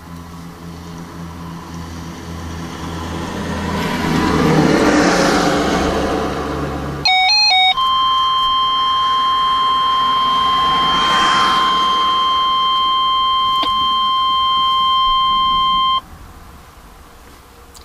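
Weather radio alert: a short burst of warbling data tones about seven seconds in, then a steady, single-pitch warning alarm tone held for about eight seconds that cuts off suddenly, the signal that a warning message follows. Before and under it, a steady low hum and the noise of traffic on the road swelling and fading.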